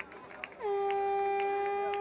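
A horn sounding one long, steady, low-pitched note. It comes in about half a second in with a slight drop in pitch and is still sounding at the end.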